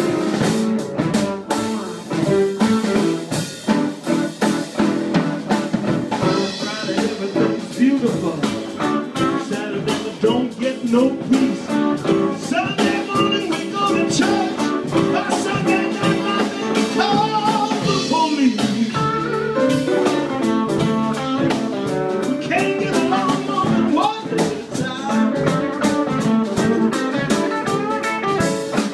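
Live blues-jazz combo playing: electric guitar, grand piano, upright bass and drum kit, with a steady, quick cymbal beat under the guitar and piano lines.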